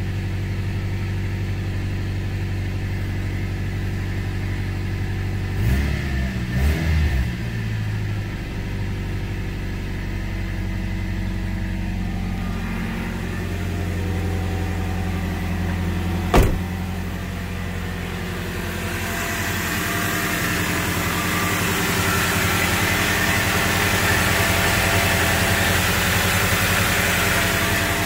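Toyota 3RZ-FE 2.7-litre four-cylinder engine idling steadily at about 1,000 rpm, freshly started after a head gasket and timing chain job. It runs smoothly, with none of the spitting or sputtering it had before. There is a single sharp knock about halfway through, and in the last third the engine is heard louder and fuller with the hood open.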